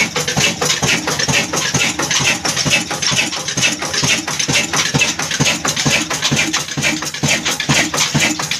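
Old Ruston Hornsby horizontal diesel engine running steadily, its firing and valve gear making a fast, even knocking beat.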